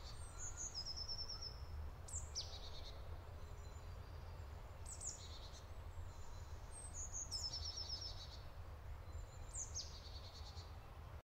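A songbird singing faint, short high phrases about every two and a half seconds, each a quick downward sweep into a trill, over a low steady rumble. The sound cuts off to silence shortly before the end.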